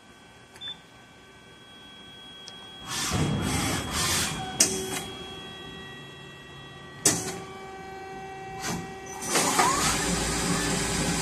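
CNC machining center powered up and moving: a steady electrical hum, with bursts of motor and mechanical motion noise, two sharp clacks, and louder running noise near the end.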